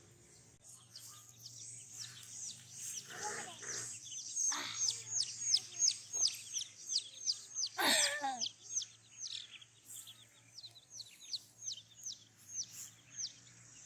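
Young poultry peeping: a steady run of high, quickly falling peeps, about three a second. A child's voice sounds briefly twice, about three seconds in and again near eight seconds.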